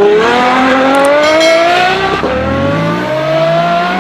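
Car engine accelerating hard, its pitch climbing steadily, dropping once at a gear change about two seconds in, then climbing again.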